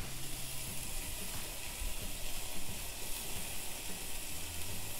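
A seared steak sizzling on the hot grill grate of a Ninja Foodi Grill at the end of cooking on high, a steady hiss.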